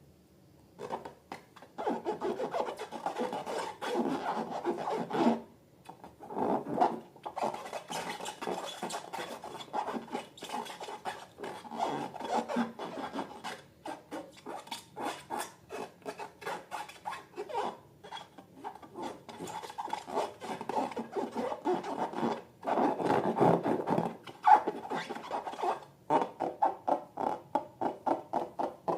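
Slime being mixed and worked by hand, a run of sticky, crackling clicks and rubbing that stops and starts in short spells.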